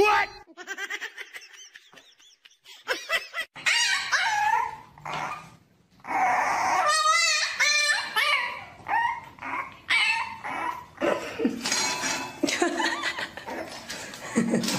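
Dogs whining and yelping in short pitched calls that rise and fall, with one fast wavering call about seven seconds in.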